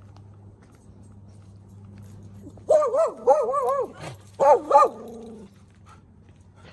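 A dog barking in a few drawn-out, wavering yowls in quick succession through the middle, the last one trailing off. A steady low hum runs underneath.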